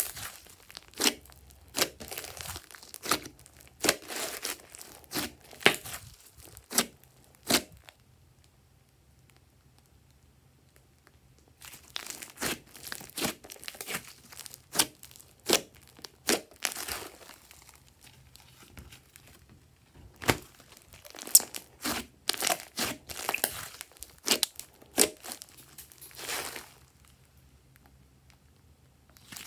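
Thick slime with small beads mixed in being squeezed, pressed and stretched by hand: sticky crackling with sharp pops and clicks as trapped air bursts. It stops for about four seconds starting about eight seconds in.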